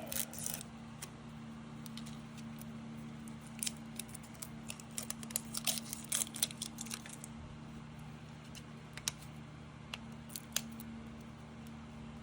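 Plastic wrapping being peeled off a toy ball by hand: scattered crackles and clicks, busiest for a few seconds in the middle.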